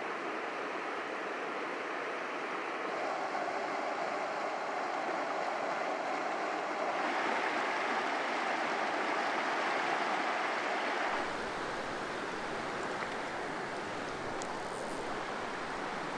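A clear mountain river running over rocks and shallow riffles: a steady rush of water. Its tone shifts a little about three, seven and eleven seconds in, and is fullest between about seven and eleven seconds.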